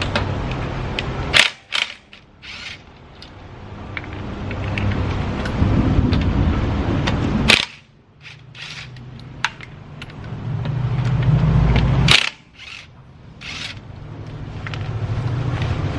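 Mechanical tool work at a car's wheels: humming, ratcheting runs that build up over a few seconds and each end abruptly in a sharp metallic clank, three times over.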